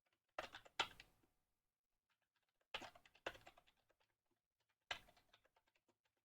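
Typing on a computer keyboard in three short bursts, each opening with one or two sharper, louder keystrokes followed by lighter taps.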